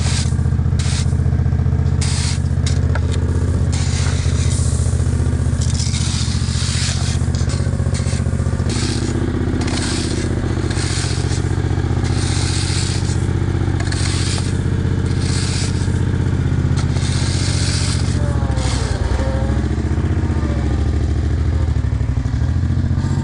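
Small engine of a power buggy running steadily, with tools repeatedly scraping through crushed stone being spread.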